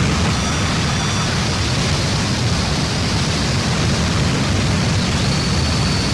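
Harsh noise music: a loud, unbroken wall of static with a heavy rumbling low end. Faint thin high tones sound briefly about half a second in, and a steady high whine enters about five seconds in.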